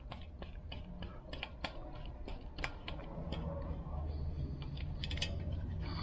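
Irregular small metal clicks and ticks, several a second, as a 4mm T-handle hex key is turned to back out a small set bolt on an e-bike's rear dropout, over a low steady hum.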